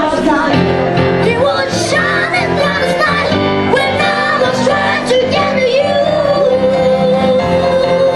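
A boy singing live into a microphone while playing a Roland FP-4 digital piano, with acoustic guitar strumming along. About two-thirds of the way through he holds one long note.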